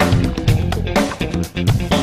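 Background music: guitar and bass guitar over a steady beat.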